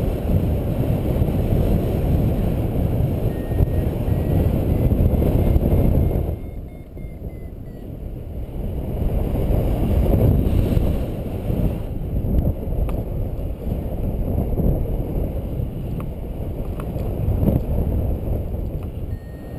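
Wind buffeting a GoPro's microphone in paraglider flight: a steady low rumble that eases for a couple of seconds about six seconds in, then builds again.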